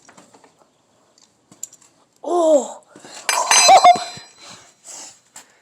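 Clatter of hard plastic as a toy figure is struck and knocked about, a burst of sharp clicks lasting about a second, as a part of the figure comes loose. A short exclamation of "oh" comes just before it.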